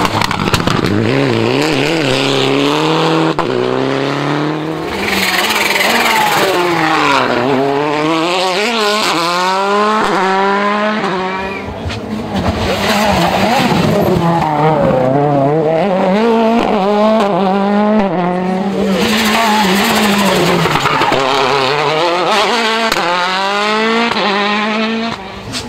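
World Rally Car turbocharged four-cylinder engines at full racing speed, revving hard up through the gears and dropping back on lifts and braking, over and over. The sound dips briefly about 5, 12 and 18 seconds in between bursts.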